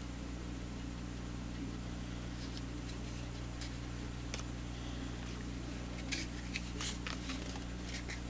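Sharp metal clicks and snaps of a heavy spring-loaded hand wire stripper being worked on a wire, scattered at first and bunched about six to seven seconds in, over a steady low hum.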